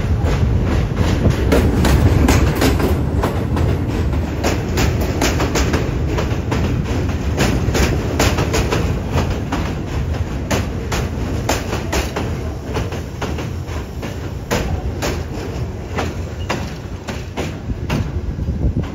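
R42 subway train running past on an elevated steel structure: a steady low rumble with the wheels clacking over rail joints, about two clacks a second, easing slightly near the end.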